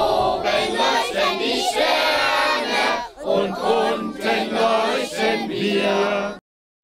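A group of young children shouting a chant together in unison. The chant cuts off suddenly near the end.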